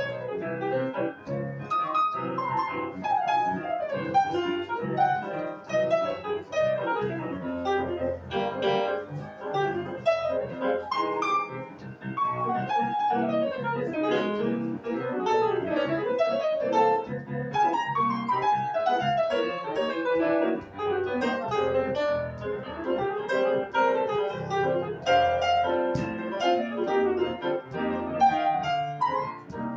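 Two grand pianos playing jazz together live, a fast, dense stream of runs and chords with no breaks.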